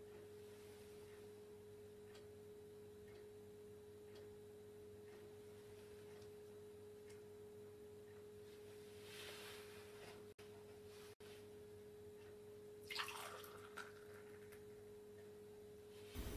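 Near silence: room tone with a steady faint hum at one pitch and faint ticks about once a second. A brief rustling noise comes about thirteen seconds in.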